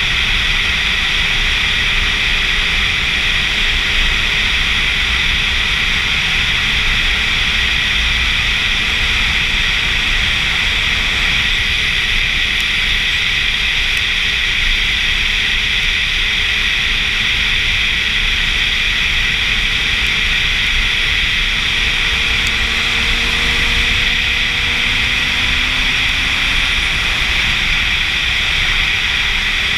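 Steady wind rush over a helmet-mounted camera on a sportbike cruising at road speed. Underneath, a faint engine drone rises slowly in pitch about twenty seconds in.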